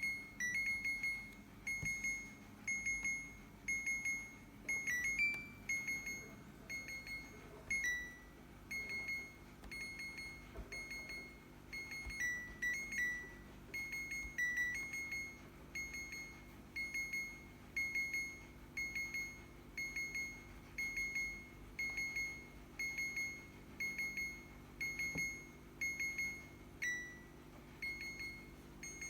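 A fridge's alarm beeping without stop, a high single-note beep repeating about three times every two seconds. Now and then a lower-pitched beep breaks the pattern, and a faint steady low hum lies beneath from about six seconds in.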